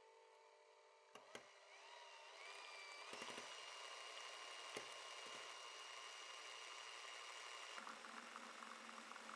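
Electric hand mixer whipping an egg-yolk mixture in a glass bowl, heard faintly. After two light clicks, the motor's whine rises in pitch as it speeds up and then runs steady. Near the end the sound shifts to a lower hum with a coarser whirring.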